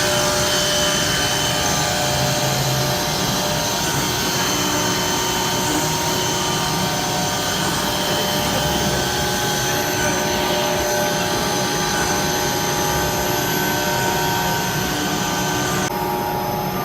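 An automatic-feeding CNC router running steadily: a loud, even machine whir with several held whining tones. The higher hiss drops away about a second before the end.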